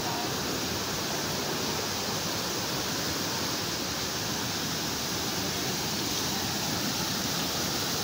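Steady rush of water from a waterfall and its rapids, growing slightly louder toward the end.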